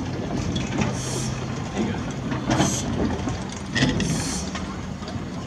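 Peckett saddle-tank steam locomotive working slowly in a shunting yard: three slow exhaust chuffs of steam, a little over a second apart, over a low rumble of the engine and its wagons.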